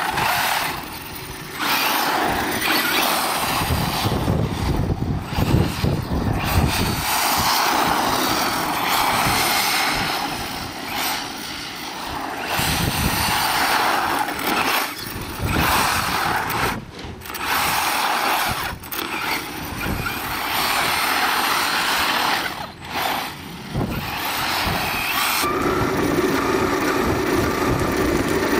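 Radio-controlled short-course truck running, its motor and tyre noise rising and falling as it speeds up and slows again and again. About three seconds before the end the sound turns into a steady motor whine, heard from a camera mounted on the truck.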